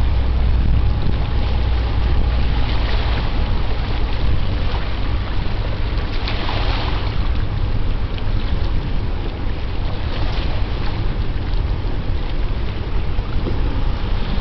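Wind buffeting the microphone over open river water: a steady low rumble with hiss, and a brief louder rush about six seconds in.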